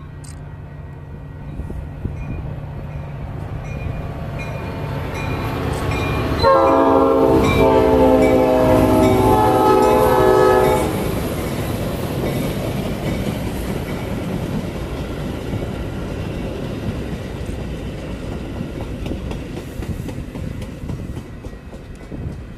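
Metra bilevel commuter train approaching and passing: a loud multi-tone horn blast starting about six and a half seconds in and lasting about four seconds, then the steady noise of the cars going by, fading toward the end.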